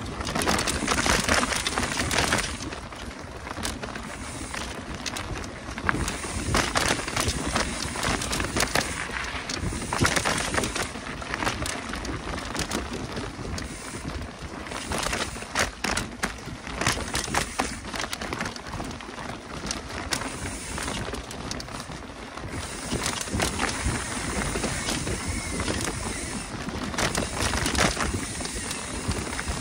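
Mountain bike riding fast down a dirt forest singletrack: continuous rushing tyre and trail noise with frequent rattles and knocks from the bike over roots and bumps.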